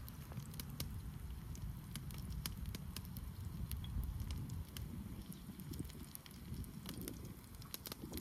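Wood fire crackling, with scattered sharp pops over a low steady rumble.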